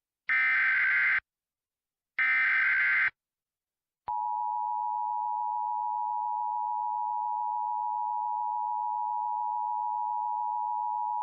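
Emergency Alert System alert tones: two bursts of SAME header data, each just under a second long and a second apart, then about 4 s in the steady two-tone EAS attention signal starts and holds.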